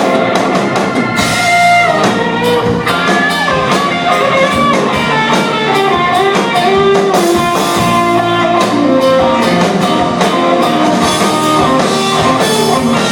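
Instrumental break of a country song: a guitar melody over a full band with a drum kit keeping a steady beat, no singing.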